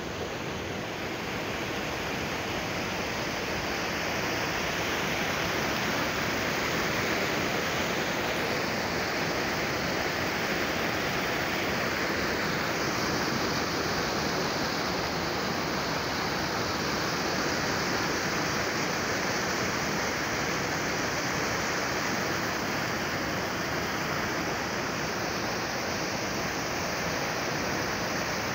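Water pouring over a long concrete canal weir and churning white in the channel below: a steady, unbroken rushing.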